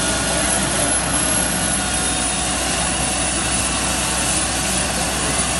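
Air ambulance helicopter running on the ground, a steady, even engine and rotor noise with no rise or fall.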